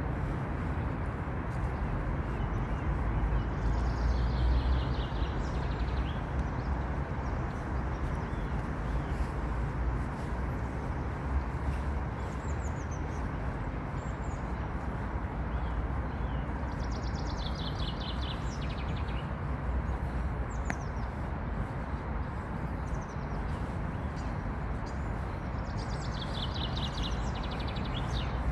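Songbirds singing short trilled phrases of rapidly repeated high notes, about four phrases a few seconds apart, over a steady low outdoor rumble.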